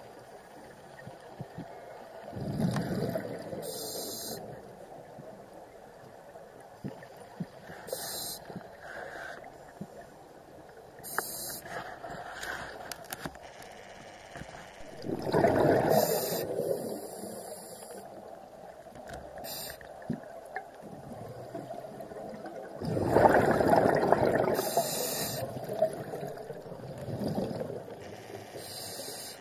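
Scuba diver breathing through a regulator underwater: short hissing inhalations every few seconds and three long bubbling exhalations, the loudest about halfway through and again about two-thirds of the way in.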